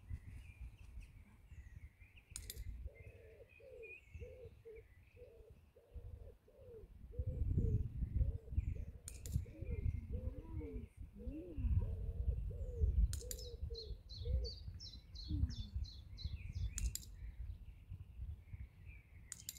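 Birds singing: steady high chirping throughout, a long run of short, low cooing notes through the middle, and a quick high trill near the end, over a low rumble. A few sharp clicks stand out now and then.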